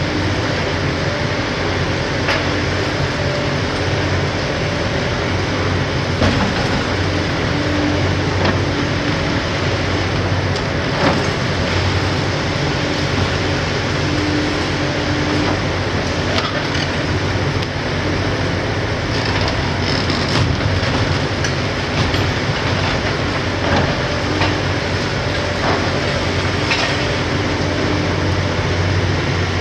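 Hitachi ZX870LCR demolition excavator's six-cylinder Isuzu diesel running steadily under load as its high-reach attachment breaks up a concrete building. Sharp cracks and clatter of breaking concrete and falling rubble come now and then.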